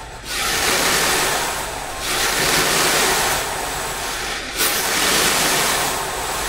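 Metal Slinky's coils rattling and sliding on the lab bench as a longitudinal wave runs back and forth along the stretched spring: a loud rushing hiss that swells and fades several times.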